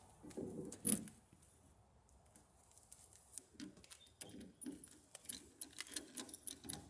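Light clicks, taps and rattles of tools and metal parts being handled while a truck's tailgate door panel is refitted, with a sharper click about a second in and a quick run of clicks near the end.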